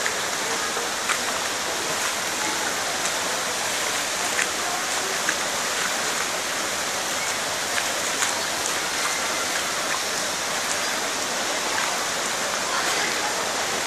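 Heavy rain falling steadily onto standing floodwater, an even dense hiss with scattered sharper drop hits.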